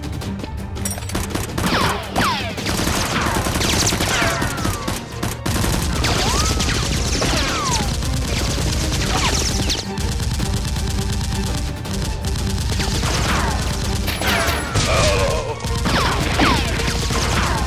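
Dubbed-in gunfire sound effects: rapid automatic fire, shot after shot, with many falling whistles like ricochets, over a steady low music bed.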